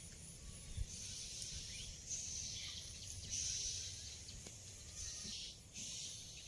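A parrot making repeated short, breathy hissing sounds, each lasting up to about a second, with short gaps between them.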